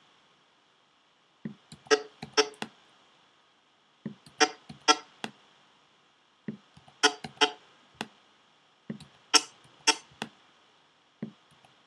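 Sharp computer key presses and clicks, in small clusters of two or three about every two to three seconds, as the right-arrow key and the click-and-drag are repeated frame by frame on a MacBook Pro.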